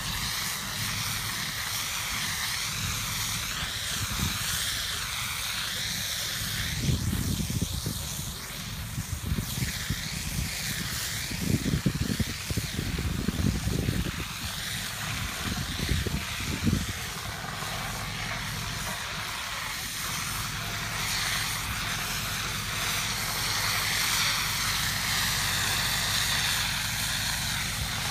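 Steady hiss of a fire hose's high-pressure water jet spraying onto a concrete pool floor, over the low steady drone of a fire engine's engine running its pump. Irregular low rumbles come and go in the middle.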